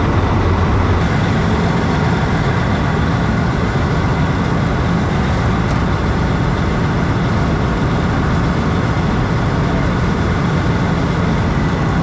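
A large farm machine's diesel engine running steadily close by, its pitch stepping up about a second in.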